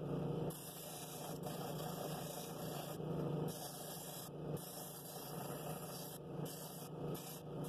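Drill press running with a sanding drum in its chuck: a steady motor hum, with a scratchy sanding rasp that swells each time the cherry wood bowl is pressed against the drum.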